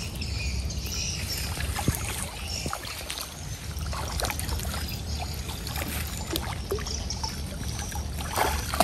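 Water splashing and sloshing as fish thrash at the surface inside a seine net being hauled to the bank, with scattered short splashes over a steady low rumble.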